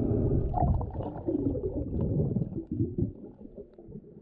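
Muffled underwater rumbling and gurgling of water churning around a diver as he goes under, heard through an underwater camera. It fades after about two and a half seconds into a quieter hush with a few faint clicks.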